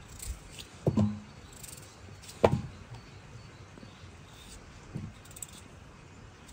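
Chunks of peeled potato cut off with a knife and dropping into a steel pot of water, each landing with a short plop. There is one plop about a second in, a louder one with a quickly falling pitch about two and a half seconds in, and a fainter one near five seconds.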